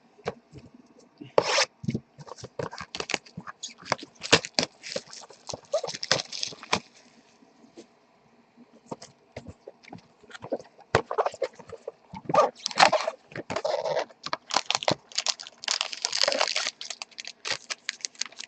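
Plastic wrapping and cardboard being handled, crinkled and torn open in irregular bursts as trading-card boxes are unwrapped, with a brief lull about eight seconds in.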